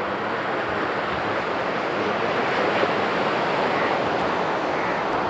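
Sea surf breaking and washing on a sandy beach, a steady rush of waves that swells a little midway.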